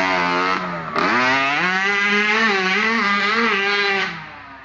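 Small dirt bike engine revving hard under throttle: its pitch drops sharply about a second in, then climbs and holds high with small wavers before fading away near the end.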